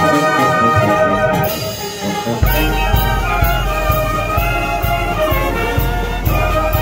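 Brass band of trumpets, trombones and tuba playing: a held brass chord, then about two and a half seconds in a steady beat of about two strokes a second comes in under the brass.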